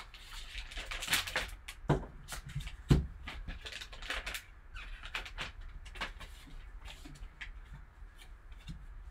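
Foil trading-card pack wrapper crinkling and tearing as gloved hands rip it open and slide the cards out, a run of quick crackles with two louder knocks about two and three seconds in.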